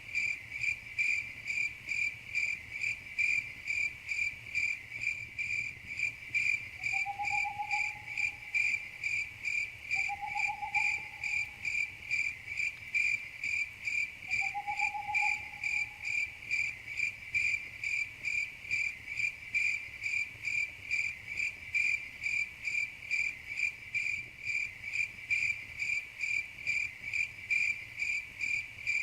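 Crickets chirping in a steady, even rhythm of about two to three high chirps a second. Three brief, lower rising notes sound a few seconds apart in the first half.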